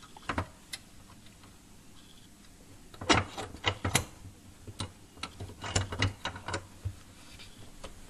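Irregular metallic clicks and small knocks as a steel wire rod is handled and clamped in a bench vise, with a cluster of clicks about three seconds in and more around six seconds.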